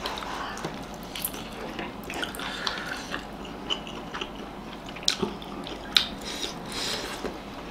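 Close-miked eating sounds: two people biting and chewing soft steamed momos, with scattered small wet mouth noises and a few sharp clicks, such as a fork against a plate, about five and six seconds in.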